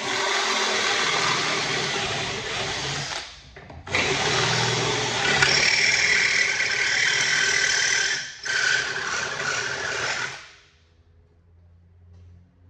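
Power drill boring bolt holes through the car's underbody for bolt-in subframe connectors, run in three bursts with short pauses. A higher squeal joins the drilling in the middle burst, and the drill stops a couple of seconds before the end.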